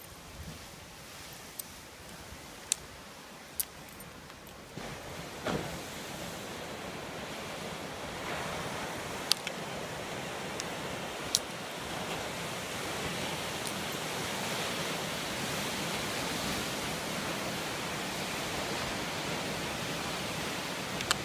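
Steady rushing of lake waves breaking on the shore, growing louder about five seconds in, with a few sharp clicks over it.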